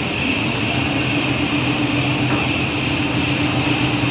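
A four-layer bubble wrap film machine running: a steady mechanical hum with a constant high whine over it.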